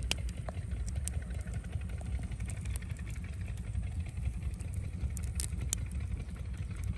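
Wood campfire crackling, with several sharp pops, the clearest about five and a half seconds in, over a steady low rumble.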